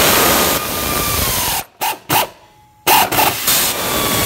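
Air ratchet running alternator mounting bolts down: a long burst of air hiss and motor whine whose pitch sags as the bolt draws tight, two short blips, then a second long run that again drops in pitch as it snugs up.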